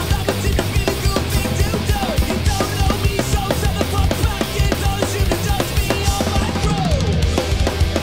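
Acoustic drum kit played fast and hard: rapid bass drum and snare hits with cymbals, over a loud rock backing track with guitar and vocals.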